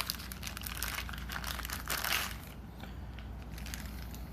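Packaging crinkling and rustling as items are taken out of a box, busy for the first two seconds, then fainter.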